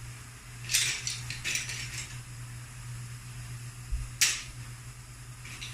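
Kitchen items being handled: a few short scraping, rustling noises, then one sharp click about four seconds in, over a steady low hum.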